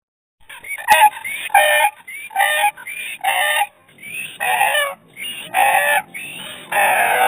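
An animal call, short squawking calls of about a third of a second each, repeated roughly once a second. The calls start about half a second in, with a sharp click near the first second.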